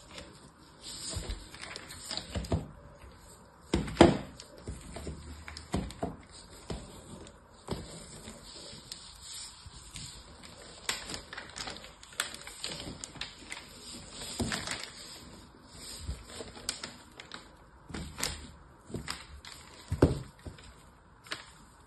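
Hard bars of soap being slid over a paper-covered surface and knocked against one another by hand, with fingernail taps and scraping between irregular clicks. Two sharper knocks stand out, about four seconds in and near the end.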